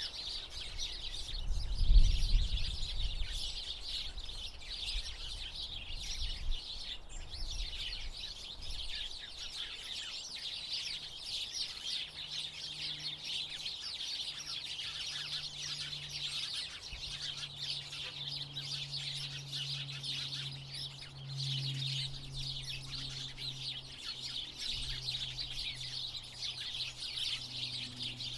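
A flock of house sparrows chirping continuously in dense, overlapping chirps. A low rumble or bump about two seconds in is the loudest moment, and a faint low hum runs underneath from about the middle on.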